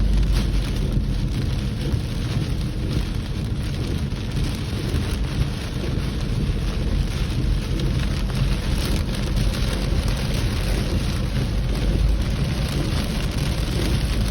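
Steady rushing noise of heavy water over a deep low rumble, with no distinct events.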